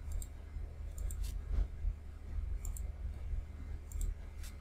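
Computer mouse clicking: a handful of short sharp clicks, some in quick pairs, about a second or more apart, over a low steady hum.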